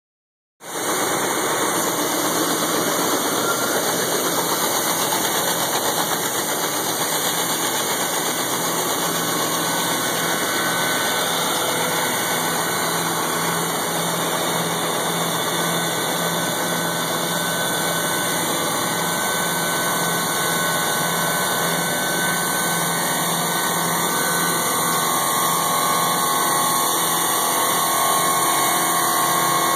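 Tractor-powered grain-handling machinery running steadily while conveying winter wheat: a Sakundiak grain auger and a grain vac, heard as a continuous mix of engine hum and rushing noise.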